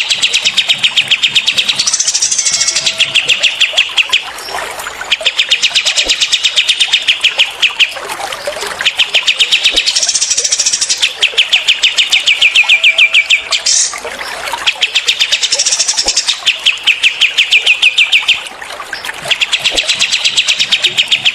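Cililin and kapas tembak songbirds giving rapid rattling 'tembakan' (machine-gun) trills: long runs of fast, evenly repeated high notes, each two to three seconds long, coming again and again with short breaks between.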